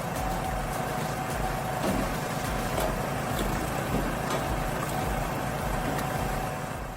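A portable mini firewood processor running steadily, its engine-driven hydraulics and conveyor giving a continuous mechanical noise with a held whine and a low throb, with a few light knocks of wood. It fades out at the very end.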